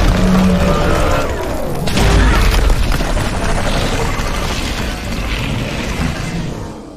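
Film sound effects for a sci-fi hover vehicle: a dense, loud rush of mechanical noise with a deep boom about two seconds in and some sliding whines early on.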